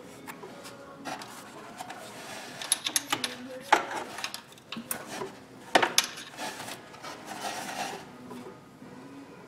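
Metal clicks, scrapes and knocks of a 10 mm wrench working loose a bolt on a thermostat housing, with two sharp knocks about four and six seconds in.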